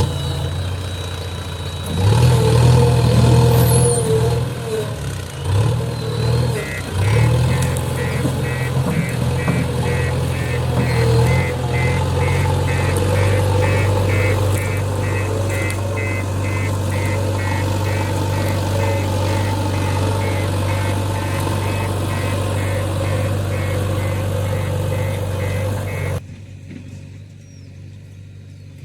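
Diesel engine of a JCB 3DX backhoe loader working, revving up and down under load and then running steady. A run of high beeps at about two a second comes in about 7 s in. Near the end the sound drops off suddenly to a quieter engine hum.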